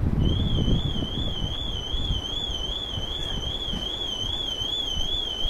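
Wind buffeting the microphone, with a high, steady electronic warbling tone wavering three to four times a second that starts just after the beginning.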